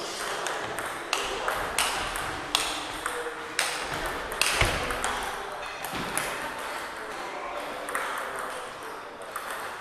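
Celluloid table tennis balls clicking off bats and the table in a rally, sharp knocks about every half second to a second that thin out after about six seconds, mixed with ball clicks from neighbouring tables.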